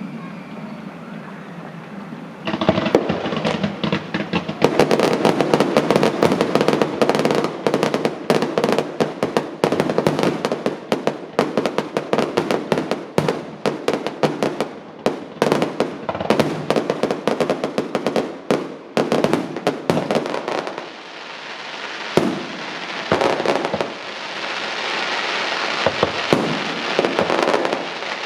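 Fireworks going off in a dense barrage of rapid bangs and cracks, starting about two seconds in. It thins out after about twenty seconds into scattered bangs and a crackling hiss.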